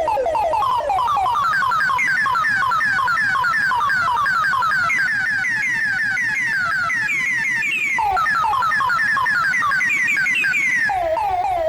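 Electronic emergency-alert alarm: a fast run of short falling chirps, several a second, whose pitch climbs slowly, drops back about two-thirds of the way through, climbs again, and drops once more near the end.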